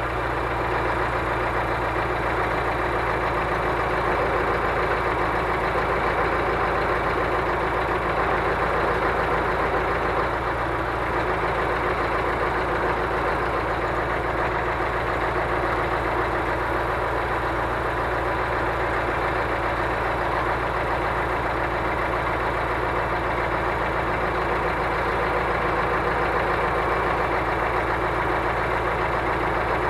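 Scania crane truck's diesel engine running steadily, driving the hydraulics of its truck-mounted loader crane while it lifts a pallet of stone.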